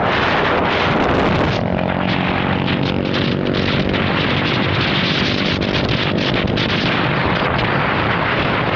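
Loud, steady wind buffeting the microphone, with a steady droning hum running underneath for several seconds in the middle.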